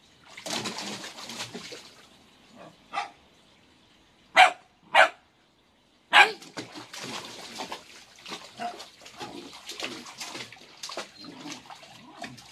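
Pembroke Welsh Corgi puppy barking: a short yip about three seconds in, then three loud, sharp barks between about four and six seconds in. Water splashes around it as it wades in a shallow paddling pool, before the barks and steadily after them.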